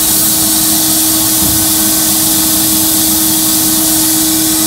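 Glass-bead blasting cabinet: the air-driven blast gun hisses steadily as it strips paint and rust off a steel speaker box, with a steady hum underneath.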